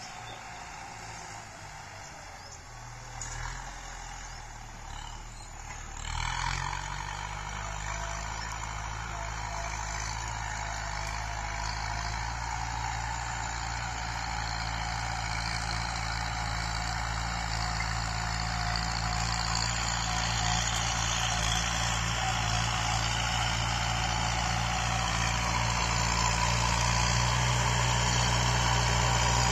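Farm tractor's diesel engine running under load while plowing, growing steadily louder as the tractor approaches; the engine note steps up about six seconds in.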